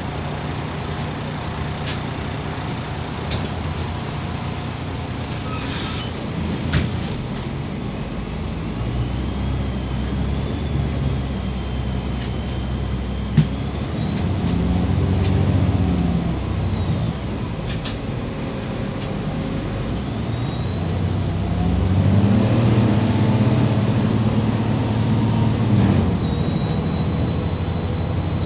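MAZ 203 city bus running, with a short hiss of compressed air about five seconds in, then pulling away twice: the engine note swells and a high whine rises and falls with the bus's speed each time.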